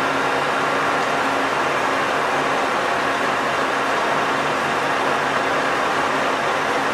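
A geared-head metal lathe running with its spindle turning at a steady speed: an even mechanical whirr with a constant low hum from the headstock.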